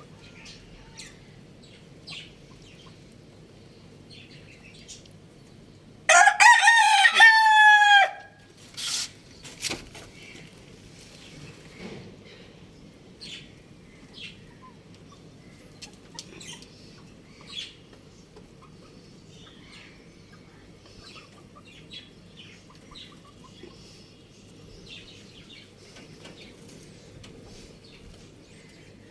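A rooster crows once, loudly, for about two seconds. Short faint bird calls and clucks are scattered through the rest.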